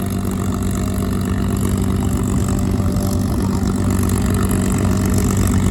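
A steady engine drone with an unchanging low hum.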